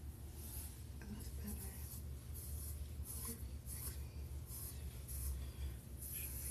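A comb pulled through hair close to the microphone: a run of short scratchy strokes, about one or two a second, over a steady low hum.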